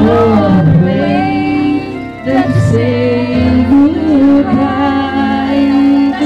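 Music with a woman singing a melody over held accompaniment chords.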